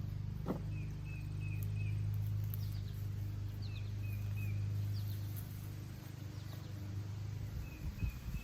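A bird chirping in three short runs of quick chirps, over a steady low hum that fades out about six seconds in. A few soft knocks near the end.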